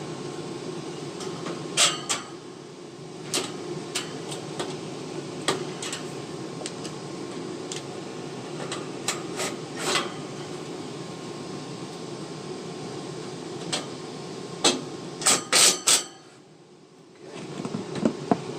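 Goodman gas furnace running with a steady low hum while its sheet-metal access cover is handled and refitted: scattered sharp metal knocks and clanks, with a quick run of loud knocks near the end. The hum then drops away briefly.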